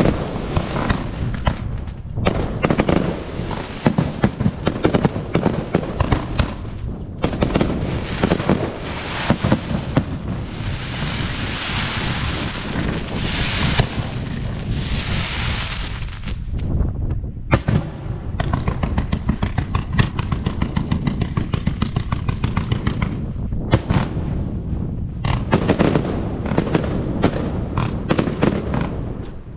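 Fireworks show: a rapid, near-continuous barrage of shells bursting overhead. From about a third of the way in to about halfway through, the bangs give way to a dense hissing crackle, with a couple of short lulls later.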